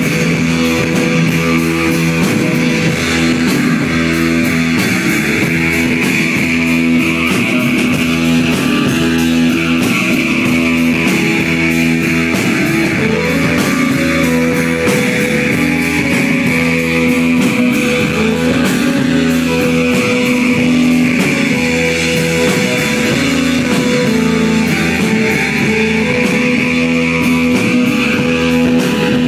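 Live psychedelic rock band playing a steady, droning groove: electric guitars, bass and drums, with a slow sweeping effect that rises and falls about every ten seconds.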